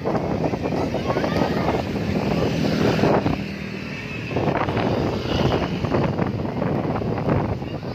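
Road traffic running past, engine noise mixed with wind buffeting the microphone; it drops briefly just under halfway through, then picks up again.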